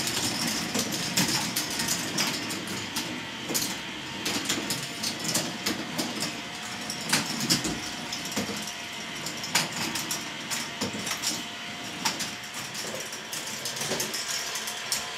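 K'NEX ball machine running: plastic balls clicking and clattering along the plastic tracks and lifts, over the steady hum of the lift motors, with many sharp clicks throughout.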